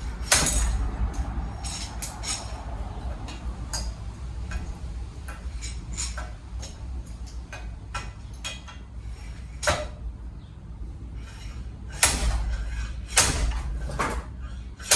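Slide hammer pulling a wheel bearing seal out of a spindle clamped in a vise: the sliding weight slams against its stop in sharp metal clanks, one just after the start and several near the end, with lighter clicks and rattles of the tool between.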